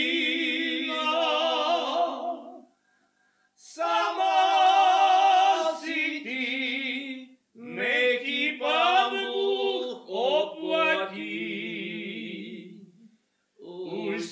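Unaccompanied male voice choir singing a slow Moravian folk song in long held phrases with vibrato, broken by short pauses about three seconds in and near the end.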